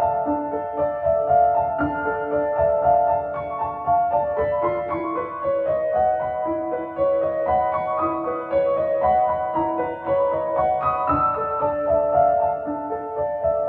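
Background piano music, a gentle melody of sustained notes stepping up and down.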